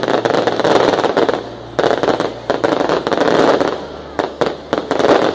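Fireworks going off at close range: a dense crackling hiss full of sharp pops and cracks, in surges that ease off briefly about two seconds in and again near four and a half seconds before building back up.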